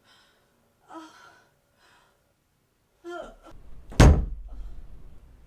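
A door slams once, sharply, about four seconds in. Before it come two short vocal exclamations.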